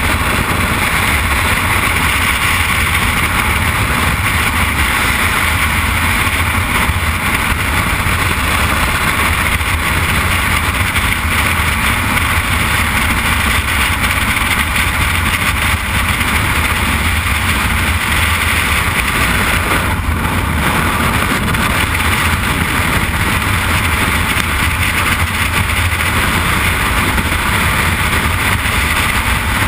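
Freefall airflow rushing over a helmet camera's microphone: loud, steady wind noise with no break.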